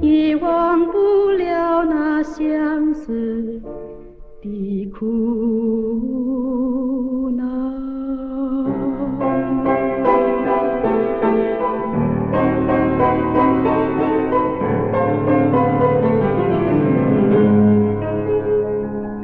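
Background music: a song, a voice singing a melody with vibrato over instrumental backing. The backing fills out about nine seconds in, and a bass line comes in a few seconds later.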